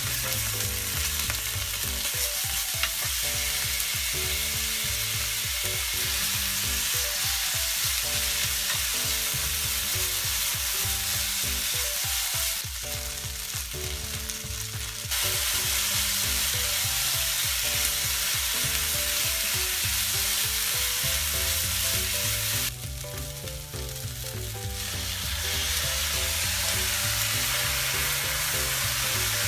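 Pork, potato and green pepper strips sizzling in hot oil in a frying pan while being stir-fried with chopsticks. The sizzle is a steady hiss that drops away briefly twice, about halfway through and again about three quarters of the way in.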